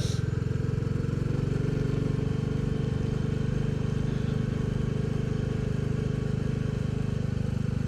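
Royal Enfield Bullet 350's single-cylinder engine running at a steady road speed, an even beat of firing pulses with no change in pitch.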